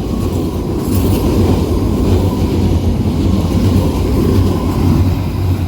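London Underground Piccadilly line train running through the station without stopping, a steady low rumble of wheels on rail that builds about a second in and eases near the end.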